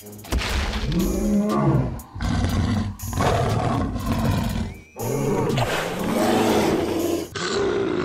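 A series of dubbed animal roar sound effects: four roars in a row, each about two seconds long with the pitch rising and falling, over background music.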